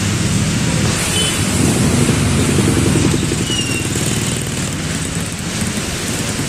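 Motorcycle and car engines running as traffic drives through a flooded road, over a steady hiss of rain and moving water. The engine sound swells briefly about two seconds in.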